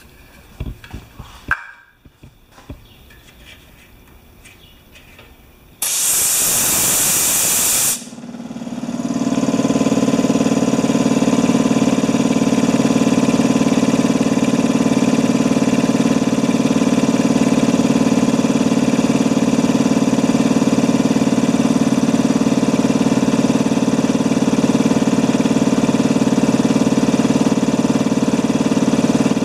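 Compressed air hissing out of the compressor tank for about two seconds as it is bled down. The electric twin-tank wheelbarrow air compressor's motor and pump then cut in, pick up over about a second and run steadily: the pressure switch has cut in on the lowered tank pressure, and the pump is building the tanks back up.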